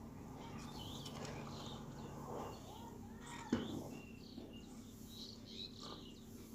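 Faint bird chirps over a low steady hum, with one sharp click about halfway through.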